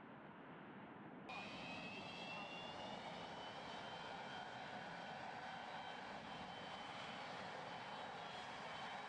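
Antonov An-225 Mriya's six D-18T turbofan engines whining faintly at taxi power over a steady hiss. About a second in, the sound cuts to a clearer recording with several high, steady whining tones.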